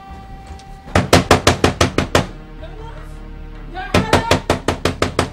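Rapid knocking on the door of a refrigerated compartment. There are two quick runs of about eight knocks each, one about a second in and one near the end, over background music.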